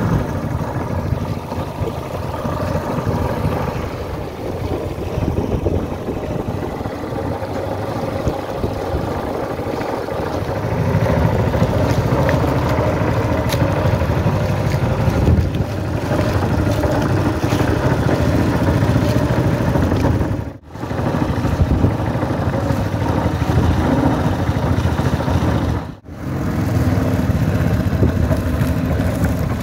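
Small boat outboard motor running steadily under way, with two brief breaks in the sound about 20 and 26 seconds in.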